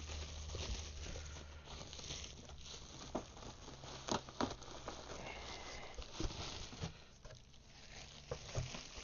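Packing paper and bubble wrap rustling and crinkling inside a cardboard box as things are lifted out, with scattered light taps and clicks.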